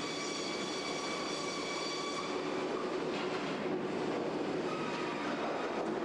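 Kara circular sawmill line running steadily: a constant machinery din with several high, steady whining tones.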